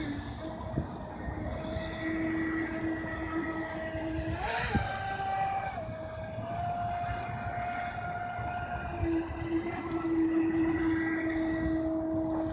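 Whine of a radio-controlled electric jet boat's motor and jet pump running across the water. It holds a steady pitch that steps up and down with the throttle, with a quick rev up and back down about four and a half seconds in.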